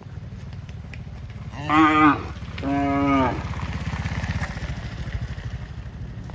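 A cow mooing twice, two short calls about a second apart, over a steady low rumble.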